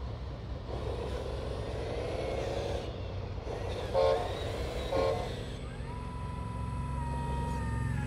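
Radio-controlled Caterpillar model with a steady, pulsing diesel-engine rumble, and two short horn toots about four and five seconds in. From about six seconds a steady whine joins in and steps up in pitch near the end.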